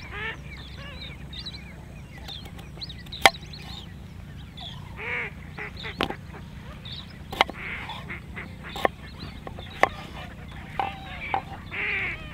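A large kitchen knife cutting through a raw potato: sharp, irregular strikes of the blade on a wooden chopping board, the loudest about three seconds in. Duck-like quacking or honking bird calls come every few seconds behind it.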